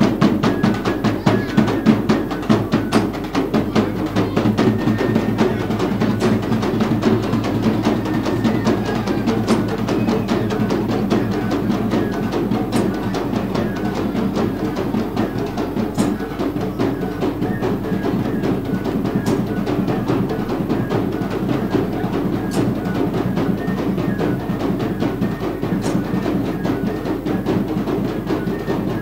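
Ensemble of hand-held drums carried under the arm, played in a fast, dense, unbroken rhythm for dancing.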